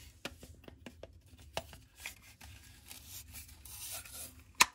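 Hand-held plastic pipe cutter cutting through a white plastic sink tailpiece: a run of small irregular clicks and scrapes as the pipe is twisted against the blade, with one sharper click near the end.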